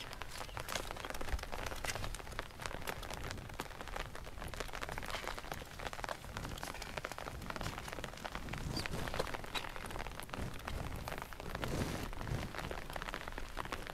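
Light rain falling, with many separate drop ticks over a steady hiss.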